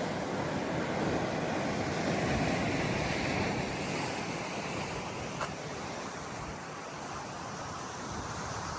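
Steady rush of sea surf mixed with wind on the microphone, swelling a little about two to three seconds in, with one short click about five seconds later.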